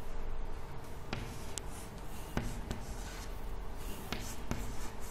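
Chalk writing numbers on a chalkboard: scratchy strokes with a few sharp clicks as the chalk strikes the board.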